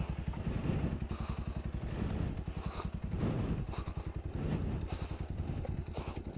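Motorcycle engine running steadily at low revs, its exhaust giving an even, rapid pulsing beat.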